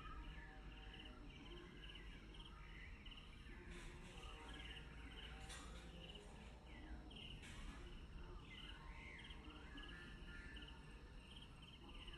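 Faint rural outdoor ambience: birds calling, with short chirps repeated in quick runs and several sweeping whistles, over a low steady rumble.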